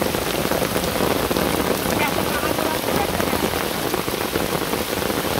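Rain falling steadily: a dense, even hiss with no pauses.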